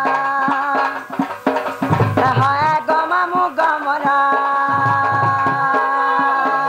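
Folk dance music: a two-headed barrel drum beaten by hand in a rhythm under a steady held melody, with a singing voice gliding over it from about two seconds in until nearly four seconds in.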